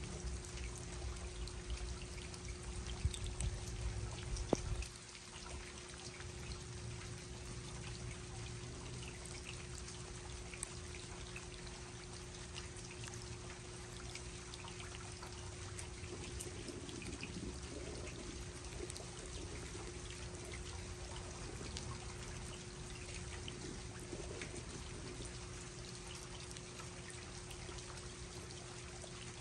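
Steady rain falling, with water trickling and small drop ticks, over a constant low hum. A low rumble cuts off abruptly about five seconds in.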